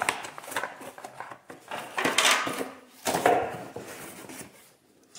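Hard plastic vacuum parts and fittings being handled: irregular clicks, knocks and rattling clatter, with two louder bursts about two and three seconds in.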